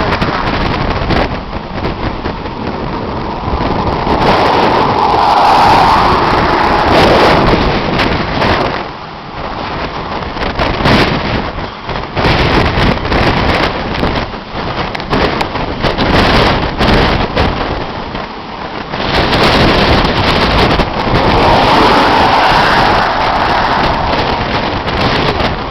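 Strong gusty wind of the tornado's parent thunderstorm buffeting the microphone, with rain, in loud uneven surges.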